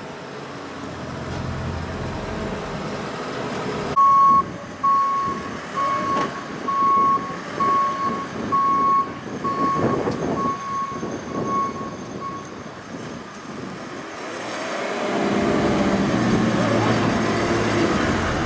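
A machine's warning alarm beeping at one steady pitch, about once a second, starting about four seconds in and stopping after some eight seconds, over engine noise. Near the end a louder, rushing noise builds.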